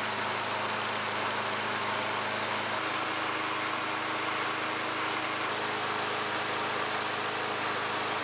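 Small single-cylinder lawn mower engine running steadily on E10 gasoline for a baseline run, its tone shifting slightly about three seconds in.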